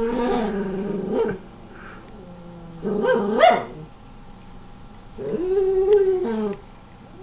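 A pet's long, drawn-out yowling calls, three of them, each about a second or more, the middle one shorter and rising in pitch.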